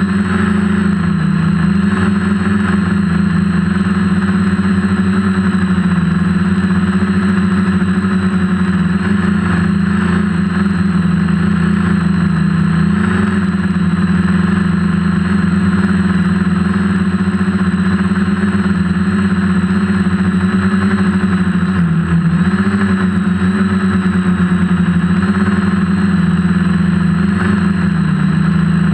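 DJI F450 quadcopter's four electric motors and propellers humming steadily in flight, heard close up from the camera on board. The pitch dips briefly at the very start and again about 22 seconds in.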